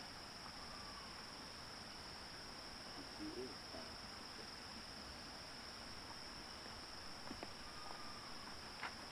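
Insects, crickets by the sound, trilling steadily at one high pitch over a faint even hiss.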